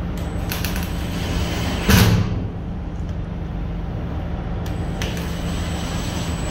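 Makita cordless impact driver running, driving hex-head wood screws through an E-track rail into a trailer's composite wall panel, with a loud sharp burst about two seconds in.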